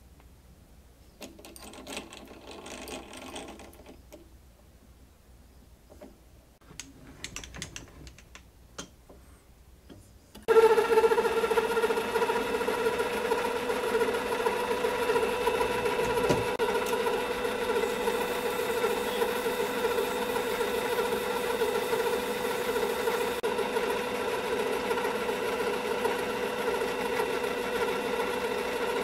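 Harbor Freight metal lathe switched on about ten seconds in, its motor and gears then running with a steady whine. Before it starts, only faint handling noises.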